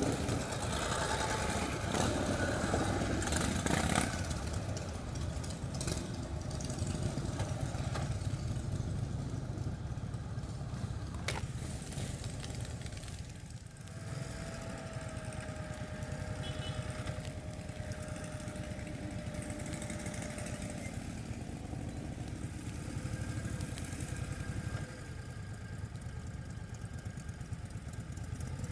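Motorcycle engine running steadily, louder in the first few seconds. About halfway through, a steady tone holds for around seven seconds over the rumble.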